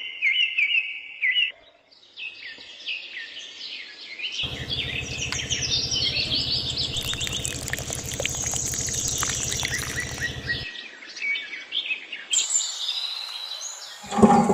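Birds chirping and tweeting in quick repeated calls, with a steady low buzzing hum from about four seconds in until about ten seconds in.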